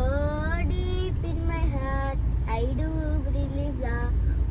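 A young girl singing unaccompanied, in held notes that slide up and down, over the low rumble of the car cabin.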